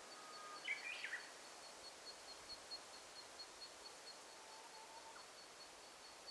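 Faint forest ambience with a bird giving a short call of a few quick notes about a second in. A thin high note pulses steadily about five times a second behind it, and a soft lower note sounds briefly near the end.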